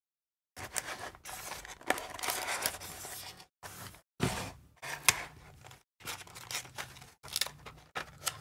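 Clear plastic blister packaging of small metal figures being handled and pried apart: irregular bursts of crinkling and scraping plastic with sharp clicks, broken by short quiet gaps.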